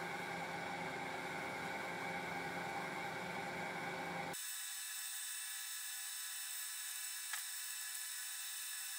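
Lathe spinning a finned aluminium engine cylinder while sandpaper wrapped on a stick is held inside the bore to polish it: a steady whir with the hiss of the abrasive. About halfway through the sound suddenly turns thinner and higher, the low part dropping away.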